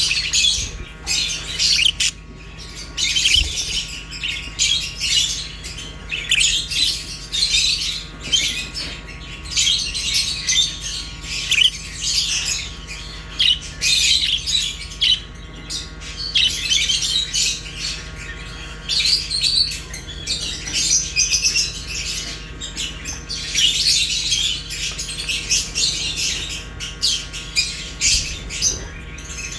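Pet budgerigars and lovebirds chattering together: a dense, continuous stream of high-pitched chirps, warbles and sharp squawks from several birds at once.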